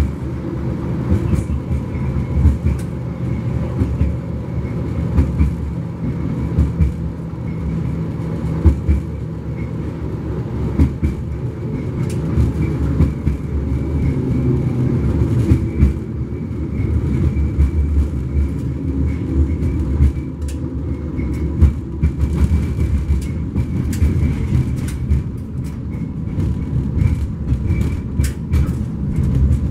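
71-134K (LM-99K) tram running between stops: a steady rumble of wheels on the rails, with scattered clicks and knocks that come more often near the end.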